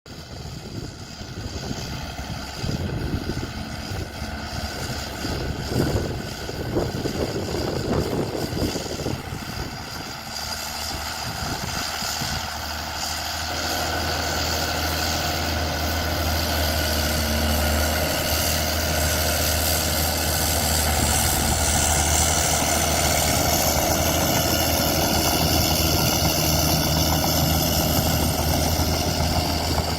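Komatsu D41P crawler bulldozer's diesel engine running. It is uneven, with scattered knocks, for about the first ten seconds, then settles into a steady, louder low drone.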